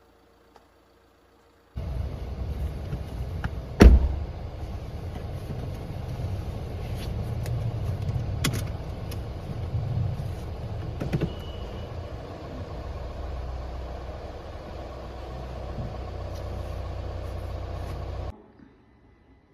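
A car door shut with one heavy thump, over a steady low rumble of a car. A few lighter clicks follow, and the rumble cuts off suddenly near the end.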